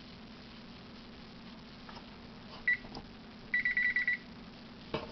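Electronic oven control panel beeping: one short beep a little under three seconds in, then a quick run of about seven beeps about a second later, with faint clicks near the end.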